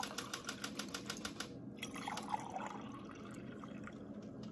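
Liquid poured from one glass beaker into another, a quick run of small splashes for the first second and a half, then a softer trickle.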